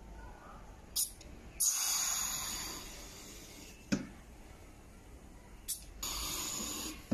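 Compressed air hissing in two bursts as the pneumatic lift cylinder of an air-driven paint agitator is worked from its valve, each burst led by a short puff. A sharp knock comes between them, and another at the end.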